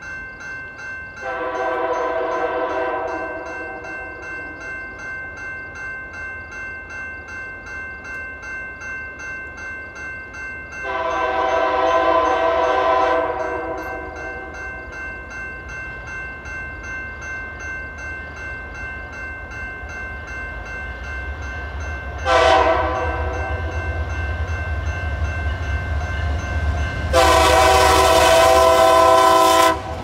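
Multi-chime air horn of Canadian Pacific diesel locomotive 4407 sounding the grade-crossing signal as the train approaches: two long blasts, a short one, and a long one. A bell rings steadily underneath, and the train's low rumble grows near the end as it comes close.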